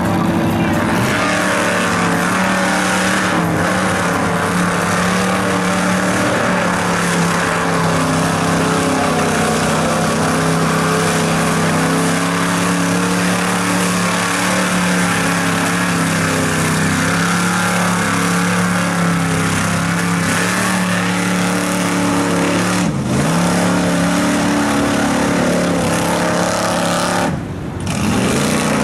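Mud truck engine running hard at high, sustained revs, with a quick lift off the throttle and back on about 23 seconds in and a short drop near the end.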